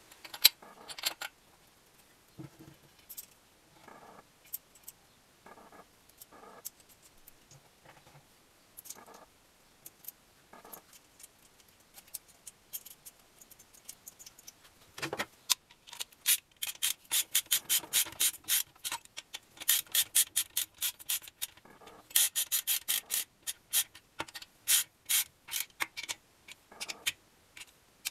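Socket wrench ratchet clicking rapidly in repeated bursts as a nut is run down on the engine. Before that come scattered light clinks and knocks of metal parts being handled.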